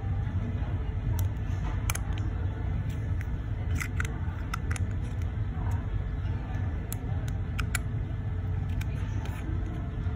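Light, sharp clicks and taps, about a dozen scattered irregularly, as the steel case and caseback of a wristwatch are handled by hand, over a steady low background rumble.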